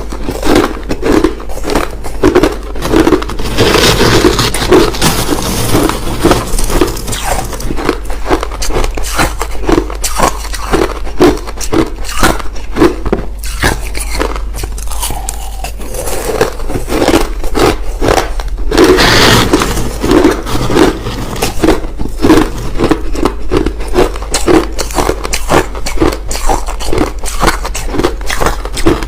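Crushed ice crunched between the teeth close to the microphone. It is a dense run of crisp crunches with a steady chewing rhythm of about two to three bites a second.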